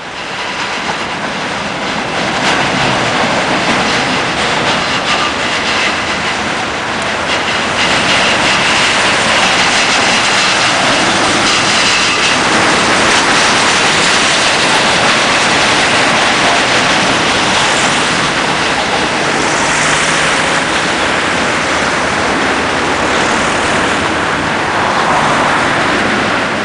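City tram running on street rails and passing close by, wheels rumbling and clacking over the track, with a high wheel squeal for a few seconds near the middle.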